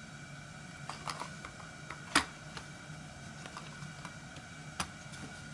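A few scattered light clicks and taps from handling a Fisher-Price Apptivity hard plastic phone case, the sharpest about two seconds in, over a faint steady hum.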